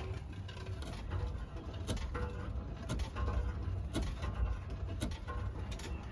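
A vehicle engine running with a steady low rumble, and a sharp click about once a second.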